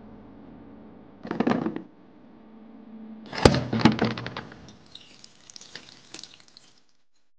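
A brief rustle, then a sharp crack about halfway through followed by a quick run of knocks, then faint scattered crackles, over a low steady room hum.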